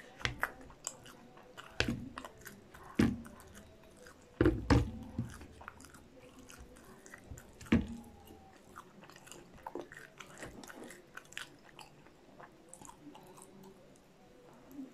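Close-miked chewing and biting of cheese-coated fried popcorn chicken: wet mouth sounds with light crunches, with a few sharper, louder clicks in the first half.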